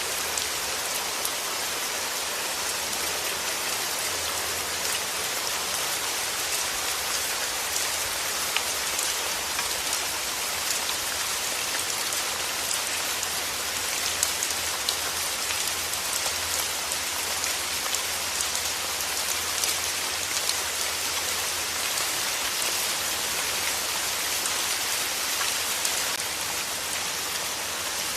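Steady rain falling on a hard surface, a constant hiss scattered with the small ticks of individual drops hitting.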